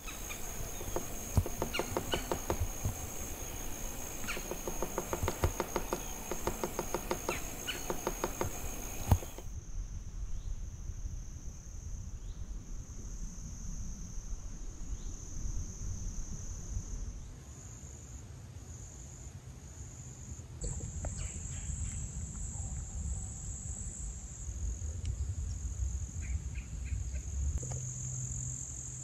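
A steady chorus of insects trilling high-pitched and pulsing. For roughly the first nine seconds it is mixed with the crunch of footsteps on a sandy trail, which stop abruptly.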